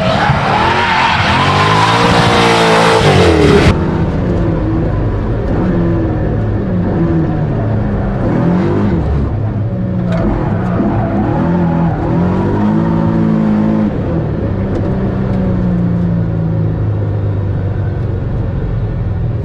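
LS2 V8 in a Mazda MX-5 NB race car, revving hard with tyre noise as it slides through a corner. About four seconds in the sound switches to inside the cabin, where the V8 revs rise and fall repeatedly through a run of corners.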